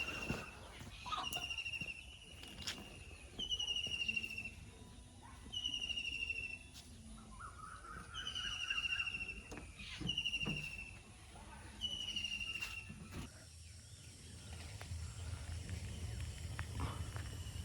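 A bird repeating a short, high, buzzy call that falls slightly in pitch, about once every second and a half, with scattered knocks. The calls stop about two-thirds of the way through, and a low rumble builds near the end.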